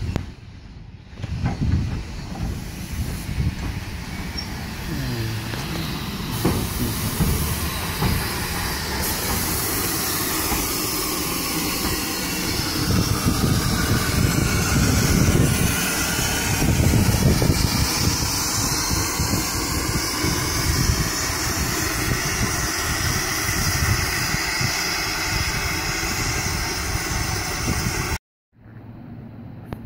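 Steam locomotive 46512, an LMS Ivatt Class 2MT 2-6-0, hissing steam over a low rumble; the hiss grows louder about nine seconds in. The sound cuts off suddenly near the end.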